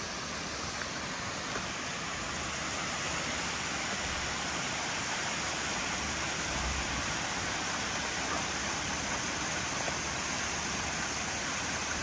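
Steady rushing of a small creek's running water, with the pickup truck's engine running low and faint underneath.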